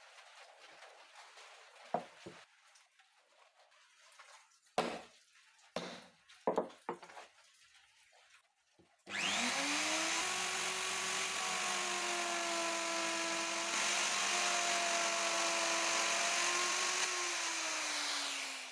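A few scattered knocks, then about nine seconds in an electric plunge router starts, its pitch rising quickly as it spins up. It runs steadily while cutting a straight groove into a wooden board, and starts to wind down at the very end.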